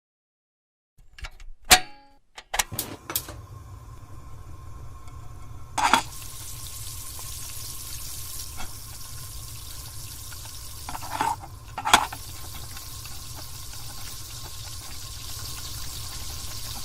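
A few clicks and knocks, then a steady rush like running water, with sharp knocks at about six seconds and twice more around eleven to twelve seconds.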